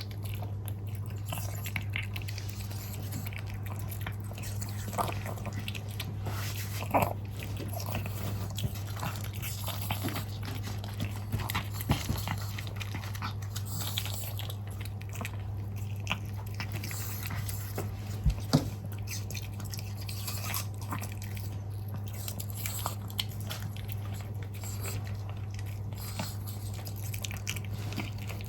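A dog chewing and crunching on food, with irregular crunches and clicks over a steady low hum.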